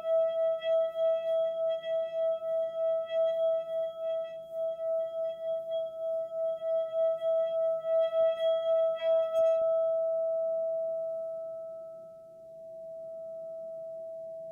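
A sustained ringing tone with faint higher overtones, pulsing about three to four times a second. A little past halfway the pulsing and overtones stop, leaving a single pure tone that fades and then swells again.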